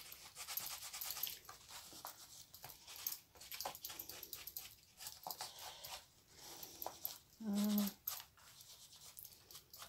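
Fingers in a latex glove rubbing and dabbing paint over a canvas: soft scratchy rustling with many small taps. A short hum of a person's voice comes about three quarters of the way through.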